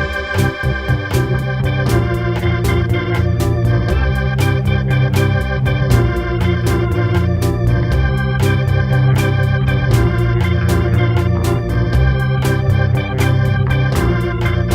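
Instrumental pop music: sustained Hammond organ chords over a bass guitar line and a Linn Drum machine beat, with drum hits at a quick, even pulse.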